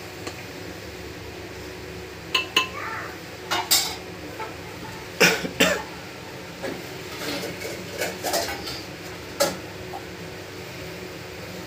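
A metal spoon knocking and clinking against a metal cooking pot while milk is stirred, about a dozen sharp separate knocks in the middle part, over a steady low hum.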